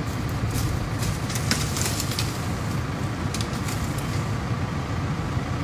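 Leaves and branches of a mango tree rustling in short bursts as a long pole is pushed up into them, mostly in the first two seconds, over a steady low rumble.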